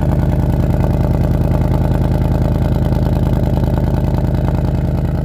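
2020 Ford Mustang's V8 idling steadily through its quad-tip exhaust, a low even burble, with the active exhaust not in its loudest mode.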